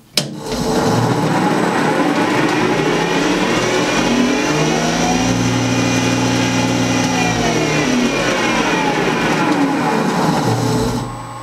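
Powermatic jointer's three-phase motor and cutterhead, run from a Teco FM50 variable frequency drive. A click of the switch starts it, its pitch rises slowly over several seconds as the drive ramps up to 60 Hz, it runs steady at full speed, then its pitch falls over the last few seconds as the drive's controlled ramp slows it down.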